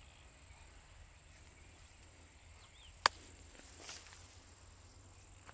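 Quiet open-field ambience with a faint steady high insect drone and a few faint bird chirps. A single sharp click sounds about three seconds in, followed a second later by a brief rustle of crop leaves brushing past the microphone.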